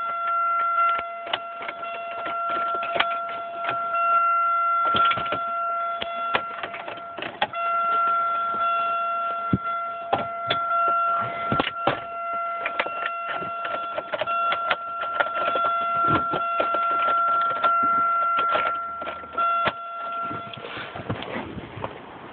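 Electrical noise from a Buick Regal that fails to start: a steady electronic tone sounds with brief gaps, under rapid irregular clicking, and the tone stops near the end.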